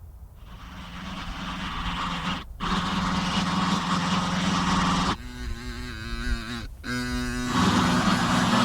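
Road traffic noise: a dense, steady mix of vehicle engines with a low hum, fading in over the first couple of seconds. A sustained pitched tone like a horn enters about halfway through. The sound cuts out abruptly twice, as if edited.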